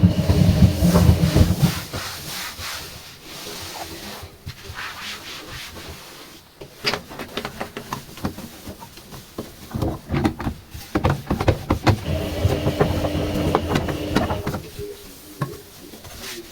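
Sponge and cloth scrubbing and wiping a washing machine: irregular rubbing strokes with small knocks and handling noises. A tap runs for the first couple of seconds and again for a few seconds later on.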